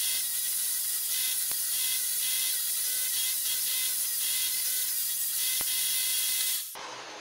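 Corded electric drill clamped in a bench holder, running at speed with an 80-grit sanding disc as a wooden bowl is sanded against it: a steady motor whine under a loud, hissing grind. The noise drops away abruptly near the end.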